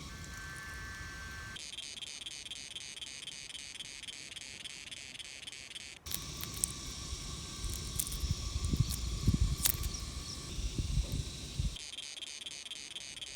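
Insects chirping in a fast, even, pulsing trill, cricket-like, that cuts in and out abruptly. A stretch in the middle holds scattered low knocks and thuds instead.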